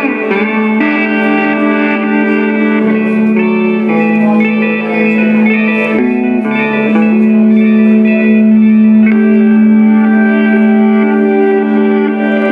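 Improvised electric guitar played through a Laney amplifier with echo effects: sustained, ringing notes that change every few seconds over a steady held drone.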